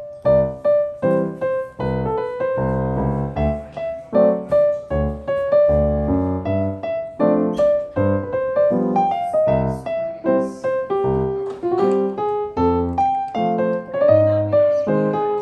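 Background piano music: a melody of single notes over low chords, notes struck about twice a second in an even rhythm.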